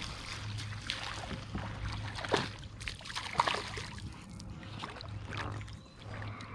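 A small hooked bass splashing and thrashing at the surface as it is reeled up to a fishing kayak, with water sloshing against the hull and two louder splashes about two and three and a half seconds in.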